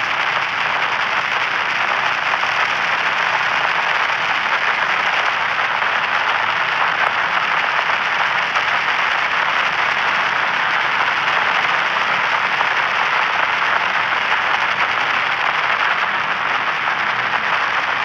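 White-noise static: a steady, even hiss with no tones or breaks, strongest in the middle and upper-middle pitches.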